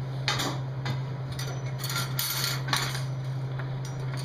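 Light metal clinks and taps as a steel ring and quarter-inch steel rods are handled and knocked together, irregularly spaced, over a steady low hum.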